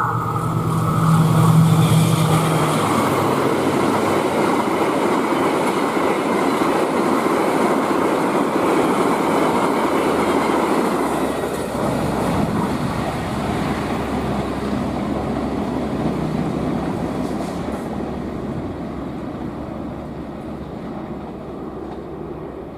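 A passenger train passing at speed: the diesel locomotive goes by loudest about a second in, followed by a long steady rush of carriage wheels on the rails that fades near the end.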